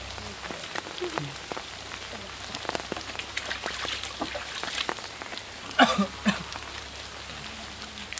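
Rain falling steadily, with many scattered drip clicks. A brief, louder sound stands out about six seconds in.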